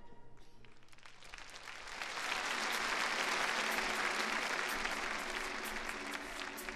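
Large arena audience applauding at the end of a performance, the clapping swelling over the first couple of seconds and then slowly easing off.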